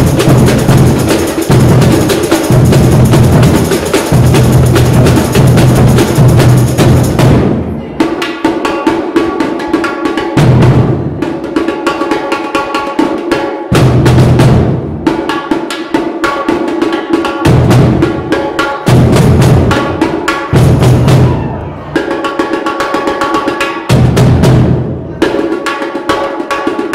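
Drum band of bass drums and snare drums playing a loud, full groove. About eight seconds in the steady bass pulse drops out and the playing turns to stop-start phrases of sharp hits, with the bass drums coming back in short bursts.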